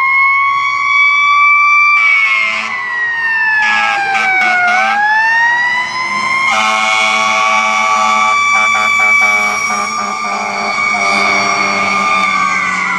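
Fire truck siren wailing, its pitch sliding down for a few seconds then climbing back and holding steady, with air horn blasts sounding over it.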